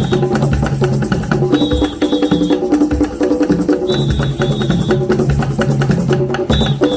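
Music with a fast, steady percussion beat of woodblock-like clicks, a repeating bass line and a melody on top.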